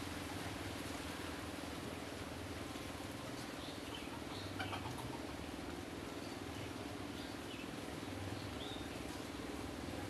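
Steady low hum and hiss of outdoor background, with a few faint, short high chirps from distant small birds between about three and nine seconds in.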